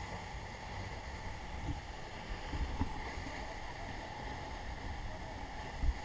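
Steady rush of the Lider waterfall's heavy falling water at close range, with spray-laden wind buffeting the microphone in a few low thumps.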